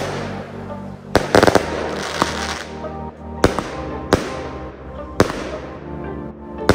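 A 78-shot fan-pattern fireworks cake in 20, 25 and 30 mm calibres firing. Several sharp reports come at uneven intervals, with a quick cluster about a second and a half in, and each trails off in a fading hiss. Background music runs underneath.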